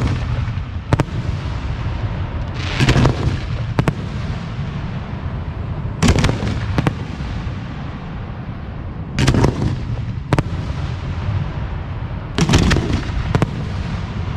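Aerial firework shells (4- to 6-inch) bursting one after another: a loud boom about every three seconds, each followed about a second later by a sharp crack, over a steady low rumble.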